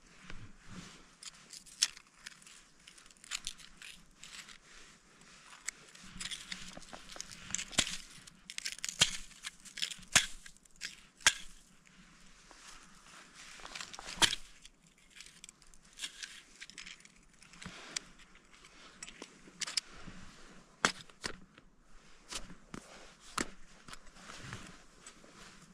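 Crampons and mountaineering boots crunching and scraping on snow and ice, with irregular sharp clicks and gritty crunches.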